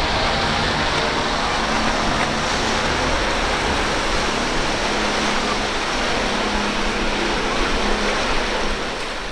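Twin Suzuki 300 hp V6 four-stroke outboards on a catamaran running at speed: a steady engine drone under a loud rush of spray and churned water.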